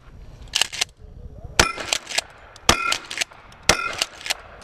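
Pump-action shotgun fired three times about a second apart, each shot followed by the clack-clack of the pump being worked, with a short metallic ring after the shots from struck steel targets.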